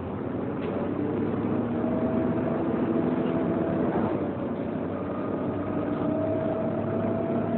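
Volvo B7TL double-decker bus's cooling fan whining: a steady tone that slowly rises in pitch, over the engine and road noise heard inside the passenger saloon.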